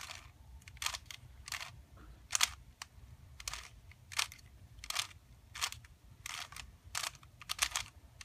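Layers of a 3x3 speedcube being turned one at a time as a J-perm algorithm is executed slowly: a short plastic click-swish with each turn, about fourteen turns at roughly one every half second.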